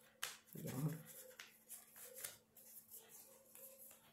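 A deck of oracle cards being shuffled by hand, faintly: soft, irregular papery clicks and slides of the cards against each other.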